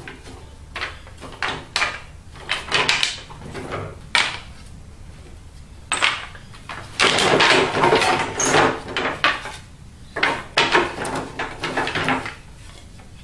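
Wooden boomerangs clacking and knocking against one another as a handful of them is shuffled and turned over, in irregular bursts of clatter.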